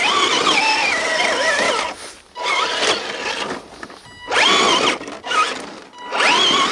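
Founder II 1/8-scale RC crawler's electric motor and gear train whining in several throttle bursts, the pitch rising and falling with load as its mud-caked tires spin and claw up a loose dirt slope.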